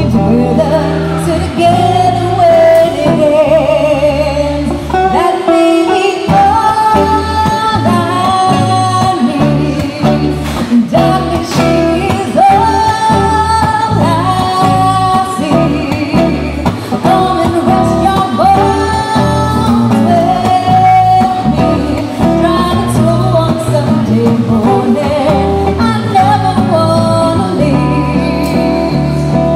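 A woman singing a gypsy jazz song, accompanied by a Gitane DG330 gypsy jazz acoustic guitar keeping a steady rhythm.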